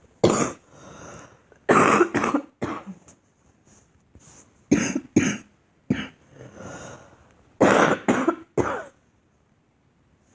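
A girl coughing repeatedly: about ten coughs in short bouts of one to three, with quieter breaths between the bouts.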